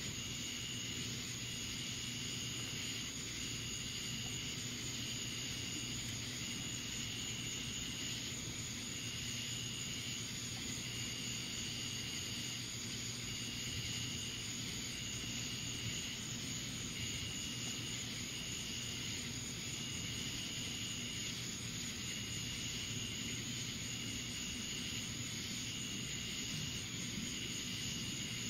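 Steady night-time outdoor background: an even hiss with a low hum under it, and a high pulsing tone that comes and goes in a steady rhythm, about once every second or so, with a few breaks.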